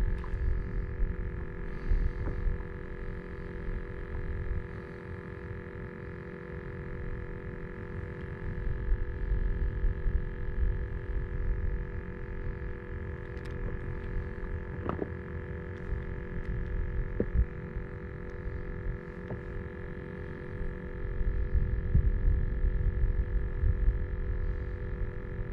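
Wind buffeting the microphone in gusts, a low rumble that rises and falls, over a faint steady hum of several tones.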